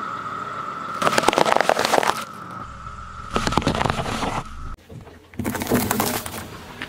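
Car tyre rolling over a pile of plastic-wrapped hard candies, crunching and crackling them in two bursts over a thin steady high tone. The tone ends abruptly, and then comes another burst of crackling as a tyre crushes plastic hair rollers.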